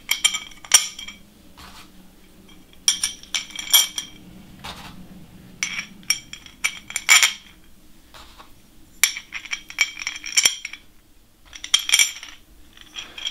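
Steel M5 button-head bolts clinking against a metal plate and against each other as they are handled and dropped through its holes. The clinks come in five or six short clusters of bright metallic clicks.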